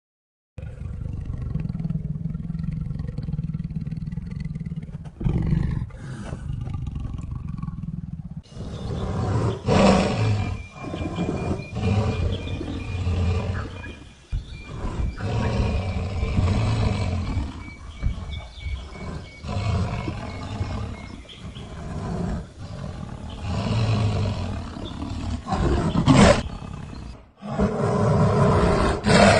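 Creature sound effect of a giant lion-like monster growling: a low, steady rumbling growl, then from about eight seconds in louder, deeper growls that swell and fade every couple of seconds.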